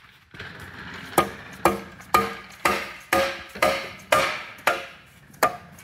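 A hammer tapping a cylinder liner down into a John Deere 4020 engine block. There are about nine even blows, roughly two a second, each with a short metallic ring.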